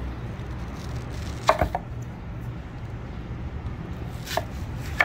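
Chef's knife cutting through a peeled onion and knocking on a wooden cutting board: a few sharp knocks, the loudest about a second and a half in and another near the end, over a steady low hum.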